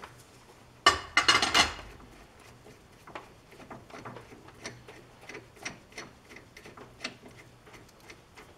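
Metal parts being handled: a quick cluster of loud clanks about a second in, then irregular light clicks and taps, over a faint steady low hum.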